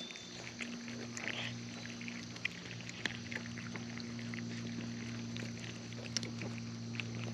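Cats eating wet food: small irregular wet smacks and clicks of chewing and licking, over a steady low electrical hum.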